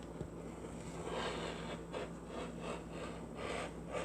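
Fabric being rubbed and shifted by hand on a work surface: soft, repeated rubbing and scraping strokes about every half second, with a steady low hum underneath.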